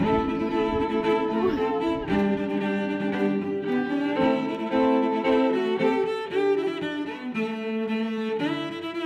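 Background music on bowed strings, held notes changing every second or so.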